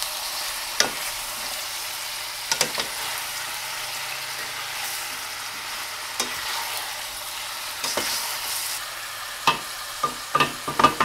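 Chicken pieces and sliced onions sizzling as they fry in olive oil in a stainless steel pan, while two wooden utensils turn them, knocking against the pan now and then and in a quick run near the end.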